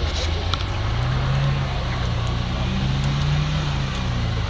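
Off-road Jeep engine revving under load over a steady low rumble, its pitch climbing for a couple of seconds and then easing off. A few sharp knocks come right at the start.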